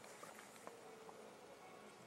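Near silence: room tone, with a faint tick or two.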